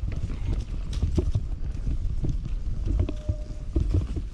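Commencal Meta Power SX electric mountain bike ridden along a dirt forest singletrack: a steady low rumble of tyres and wind with irregular knocks and rattles as the bike goes over bumps and roots.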